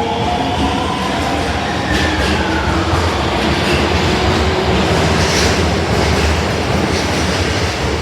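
Osaka Metro Tanimachi Line subway train running: a steady loud rumble of wheels on rail, with a motor whine that glides in pitch during the first few seconds and then fades into the running noise.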